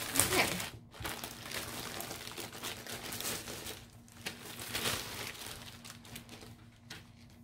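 Plastic wrapping crinkling and rustling as a folded travel yoga mat is handled in its bag, dying down over the last couple of seconds.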